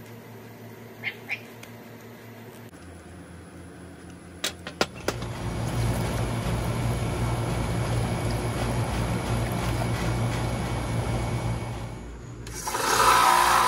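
A couple of faint squeaks from rusty tin snips cutting sprues off cast silver bars, then water from a garden hose running steadily into a bucket. Near the end a small bench belt sander's motor starts up with a whine.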